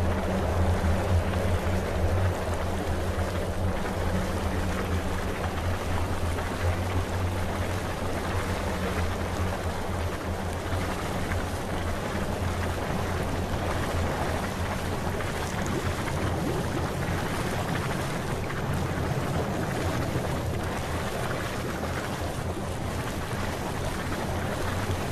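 Ambient soundtrack of a 3D virtual desert artwork played over screen share: a steady low hum under an even rushing noise, running on without a break.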